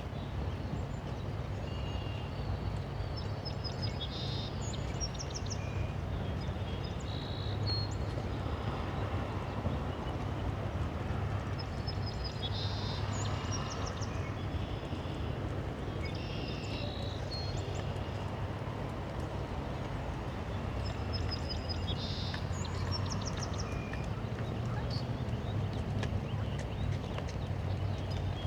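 Steady rush of flowing stream water, with a songbird singing short chirping phrases every few seconds.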